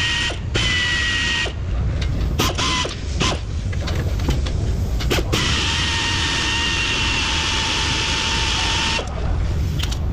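Power ratchet spinning a fastener on the steering knuckle: a steady whine for about a second and a half, a few sharp metal clicks and knocks, then the whine again for about four seconds.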